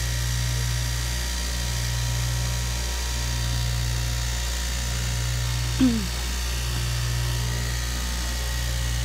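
Electric straight-knife cloth cutting machine running steadily, its motor humming with a slight regular pulsing as the vertical reciprocating blade cuts through stacked layers of fabric. A brief falling squeak comes about six seconds in.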